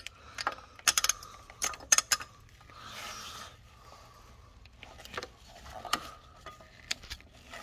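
Light metallic clinks and taps as a belt tensioner and its long mounting bolt are set in place on the engine and the bolt is threaded in by hand, most of them about one to two seconds in, with a brief rustle about three seconds in.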